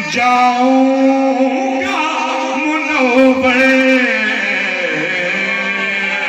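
A man singing a naat, an Urdu devotional poem, into a microphone. He holds long notes with melodic bends, with a downward slide about five seconds in.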